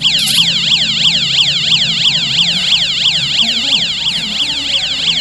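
Homemade electronic alarm sounding: a loud siren-like warble of rapid, evenly repeated falling sweeps, several a second.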